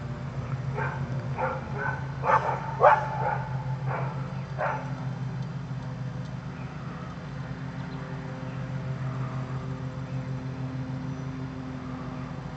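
A dog giving a quick run of about eight short, sharp barks or yips over about four seconds, beginning about a second in, then stopping. A steady low hum runs underneath.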